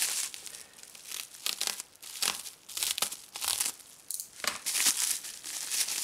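Bubble wrap crinkling and crackling in irregular rustles as it is handled and pulled open by hand.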